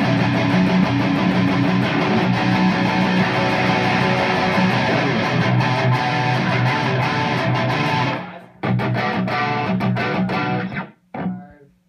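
Electric guitars played loud through an amp, running through a metal riff while one player shows the other the part. The riff stops about eight seconds in, picks up again for a couple of seconds, then breaks off near the end.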